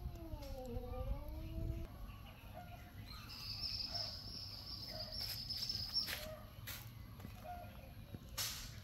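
A kitten meowing in one long call that dips and rises in pitch, followed a second later by a high, thin, steady squeak lasting about three seconds, and a few sharp clicks near the end.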